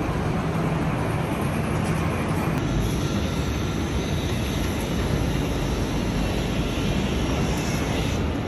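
Steady, loud noise of city traffic, an even haze of sound with no speech, changing character slightly a few seconds in.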